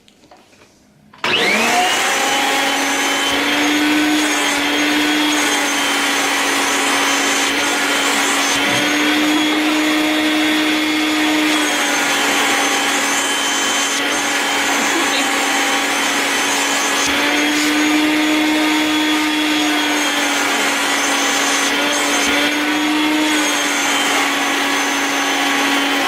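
Vacuum cleaner with a small suction attachment switched on about a second in and running loudly and steadily, its motor hum rising slightly in pitch now and then, then switched off and winding down at the very end.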